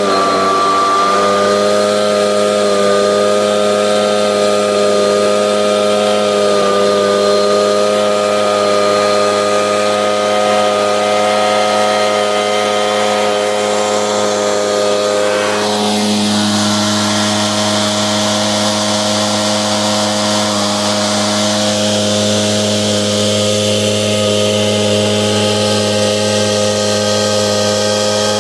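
Echo PB770H backpack blower's two-stroke engine running steadily during a hot-restart test. About halfway through, the hiss of the air rises while the engine note holds.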